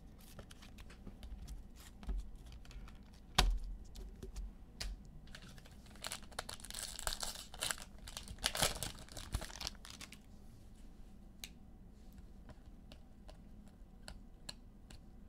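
Trading cards being handled at close range, with light clicks and taps as the cards are slid and set down, and a sharper knock about three and a half seconds in. In the middle, a card pack's plastic wrapper crinkles for a few seconds.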